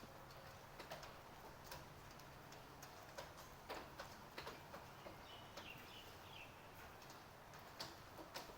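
Light city rain: scattered drips and taps landing irregularly on hard surfaces over a faint steady hiss.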